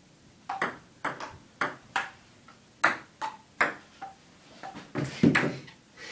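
Table tennis rally: a celluloid ball clicking off paddles and bouncing on the table, about ten quick sharp ticks over four seconds. About five seconds in comes a louder, heavier knock and clatter.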